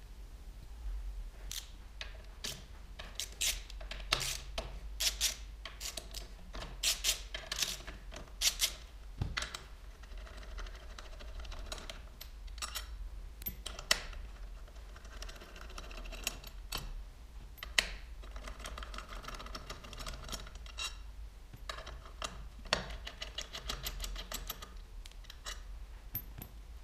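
Metal hand tools clicking and clinking as a bit socket works the screws of a motorcycle's handlebar clamp. There are many sharp clicks at first, then a long stretch of fast, fine ticking with a few louder clicks.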